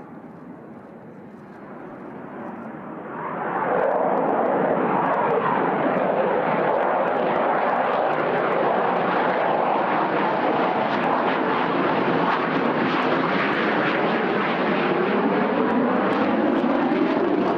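F-16 fighter jet engine noise, moderate at first, then swelling to a loud, steady rush about three to four seconds in as the jet nears. Near the end a falling pitch sweep marks it flying past.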